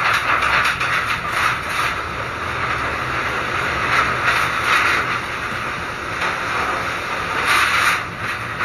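Typhoon wind and rain on a corrugated metal roof: a steady rushing noise that swells about halfway through and again near the end.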